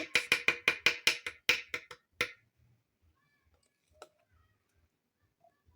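Peanuts rattling into a blender jar: a quick run of clicks for about two seconds, then one more click about four seconds in.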